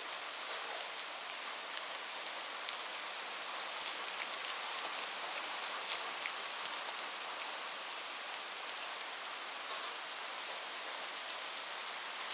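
Steady rain falling, an even hiss with scattered sharp taps of individual drops landing.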